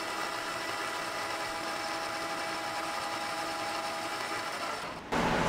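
Metal lathe running, a steady multi-tone whine from its motor and gearing as a tool turns down a small metal arbor. It cuts off abruptly near the end, giving way to a louder, even hiss.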